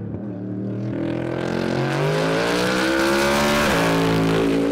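Race car engine running at high revs, its pitch climbing for a couple of seconds and then falling sharply a little over three and a half seconds in.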